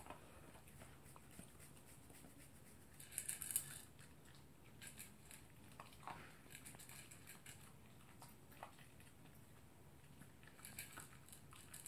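Toy poodle eating from its bowl: faint chewing and scattered clicks, with a louder flurry of quick clicks about three seconds in and another near the end.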